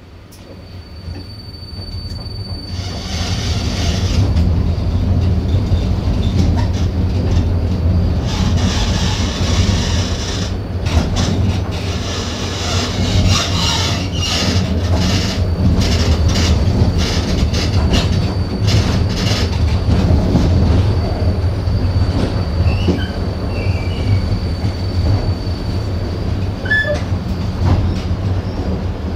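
Siemens ULF low-floor tram running, heard from inside the passenger saloon: a steady low rumble of wheels on rail under a thin, steady high whine. The noise builds over the first few seconds, and through the middle there are many sharp clicks and rattles from the track.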